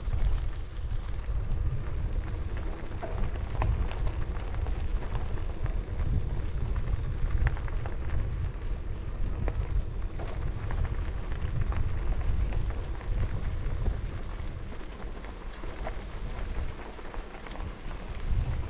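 Wind buffeting the microphone of a bicycle-mounted camera while riding along a trail, a heavy steady rumble with scattered light crackles from the tyres rolling over the trail surface.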